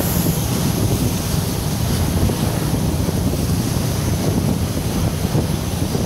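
Wind buffeting the microphone over the steady rush of a moving boat's wake churning past the hull.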